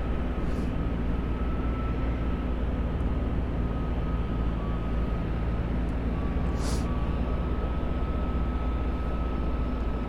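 Steady roar of water pouring through the Illinois River dam spillway, with a faint steady high whine over it and a brief hiss about seven seconds in.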